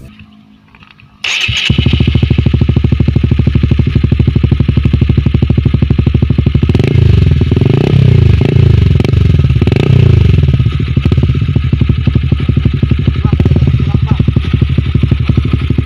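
Honda CB150R's single-cylinder engine through a Purbalingga-made replica Akrapovic slip-on muffler, starting abruptly about a second in and idling with a deep, rapid, even exhaust pulse. In the middle the throttle is blipped several times, the pitch rising and falling with each, before it settles back to idle.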